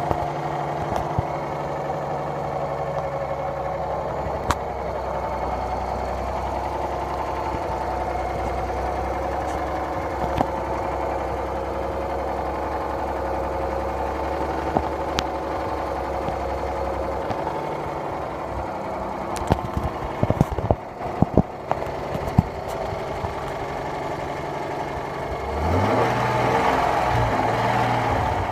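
Cold engine idling steadily with a knock, which the owner calls engine knock. The running gets louder and uneven a few seconds before the end.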